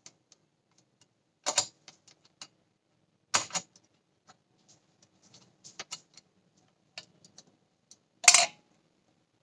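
Small precision screwdriver clicking and scraping against tiny screws inside a Sony Alpha 58's mirror box, loosening the pellicle mirror's fittings. Scattered light ticks with three louder clicks and rattles, the loudest near the end.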